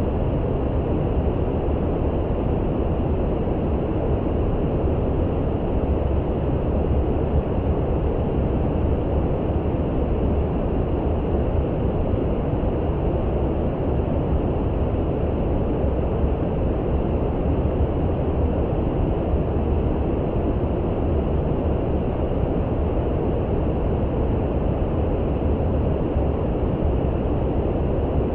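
Steady brown noise: a deep, even rushing noise, heavy in the low end with little hiss on top, unchanging throughout.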